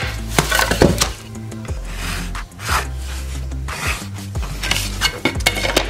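A pencil scratching cut lines along a wooden straightedge on a sheet of gypsum drywall, with the board rubbing and scraping over the drywall's paper face as it is slid into place, in several short strokes. Background music with a steady bass plays underneath.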